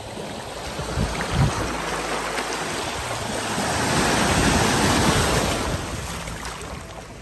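Shallow seawater swishing and lapping close to the microphone. It builds to its loudest about four to five seconds in and dies down near the end.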